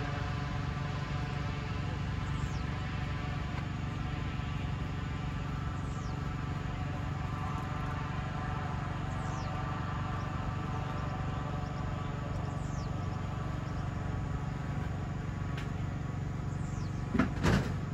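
Cessna 188 agricultural plane's engine and propeller droning steadily in the distance as the plane flies away. High, falling chirps come about every three to four seconds, and there is a brief loud noise near the end.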